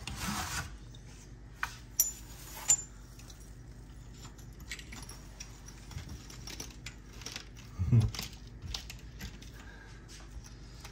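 Small mosaic tiles on a mesh-backed herringbone sheet clicking and clinking against each other as the sheet is handled and pressed into thinset. Two sharp clicks come about two and three seconds in, and a soft thump about eight seconds in.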